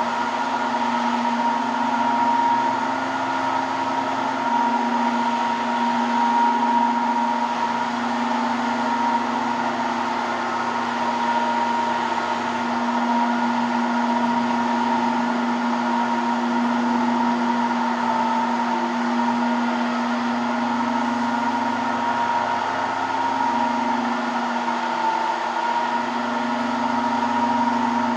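Electric marble-and-granite polishing machine running steadily, its motor giving a constant whine with a low hum under it.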